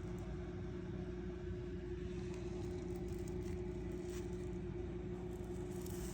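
Chevrolet 6.0 L LS2 V8 running steadily, a constant whine over a dense low hum. The engine has a bad rod bearing and low oil pressure, the cause of its rod knock.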